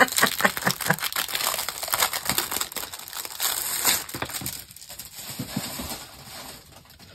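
Clear plastic packaging bag crinkling and crackling as a rolled diamond painting canvas is pulled out of it and handled, dense for the first few seconds and thinning out after about four seconds.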